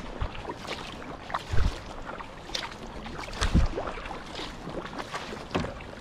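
Kayak paddling on calm water: the Aquabound paddle's blades dip in alternately, with a dull splash about every two seconds. Water trickles and drips off the blades in between.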